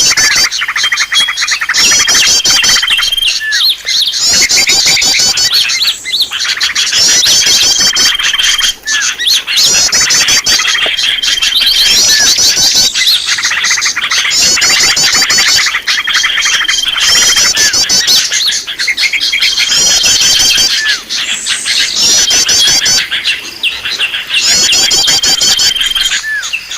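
Many small songbirds chattering and trilling in a dense chorus. The same phrase of rapid high chirps and one held whistled note repeats every two to three seconds.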